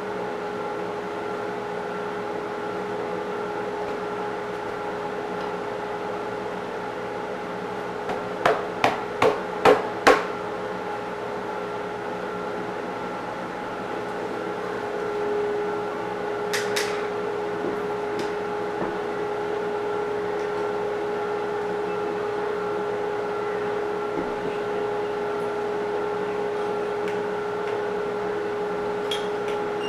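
Random orbit sander running with a steady, even-pitched hum on a heart pine floor. About eight seconds in, five sharp knocks follow one another roughly half a second apart.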